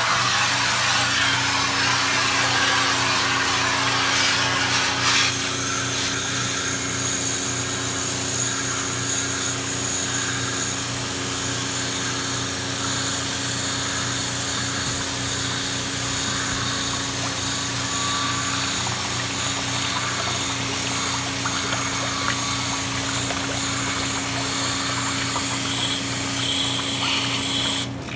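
A motor-driven cleaning machine running steadily with a constant hum and hiss, starting suddenly and cutting off near the end; the hiss is stronger for the first five seconds or so.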